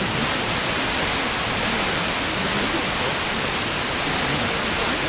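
Steady hiss of an FM radio receiver on a weak, distant station received by sporadic E, with faint traces of the station's voice buried under the noise.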